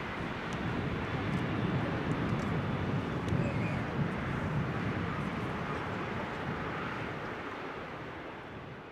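Turbofan engines of a twin-engine widebody jet airliner climbing out after takeoff, a steady rumble that fades out near the end.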